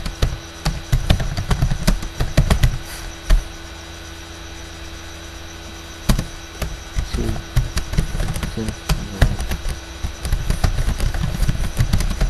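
Computer keyboard keys being typed in quick runs of clicks, with a pause of a couple of seconds partway through before typing resumes.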